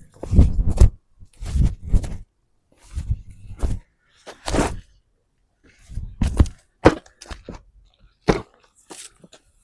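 An irregular series of thuds and cracks, roughly one a second, each short with strong low thump.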